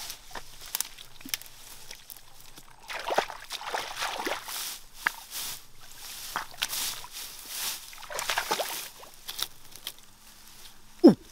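Feet splashing and sloshing through shallow muddy water, with rustling of grass at the bank. About eleven seconds in, a short, loud cry falling in pitch.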